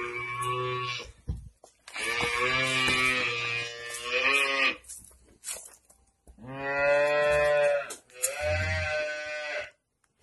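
Cow mooing: a string of long, drawn-out calls, each lasting one to two and a half seconds, with short pauses between them.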